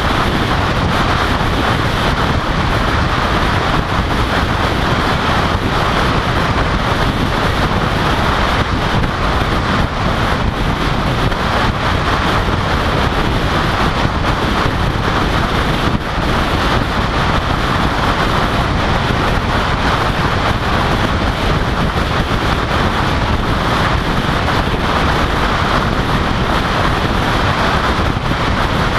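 Steady rush of wind and tyre noise from a car driving at road speed, picked up by a camera mounted on the outside of the car, so the wind hits the microphone directly.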